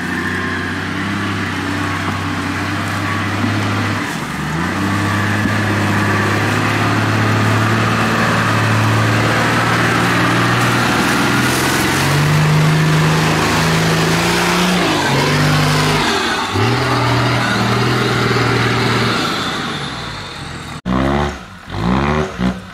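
Diesel engines of modified off-road 4x4s running under load as they crawl up a muddy trail, the engine note stepping up and down with the throttle. Near the end the sound cuts abruptly to an engine revving in short bursts.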